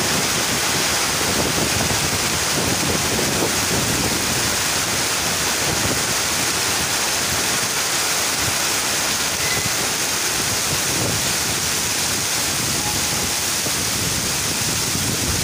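Steady rain, an even hiss of falling water that holds at one level throughout.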